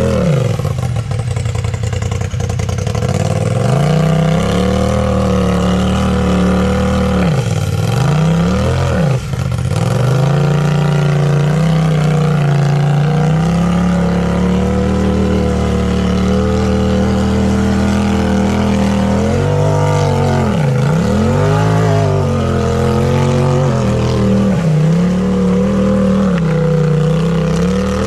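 Tube-chassis Polaris RZR side-by-side's engine running hard on a rock ledge climb, held at steady revs for stretches and dropping off the throttle and revving back up several times, once around 7 to 9 seconds in and again around 20 to 23 seconds in.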